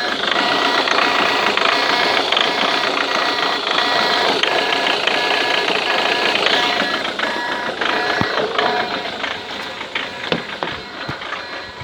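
Ford Mondeo Mk3 TDCi diesel engine running with a fast, dense ticking clatter, a strange noise that the owner cannot identify and places around the injectors. It grows quieter over the last few seconds, with a few sharp clicks.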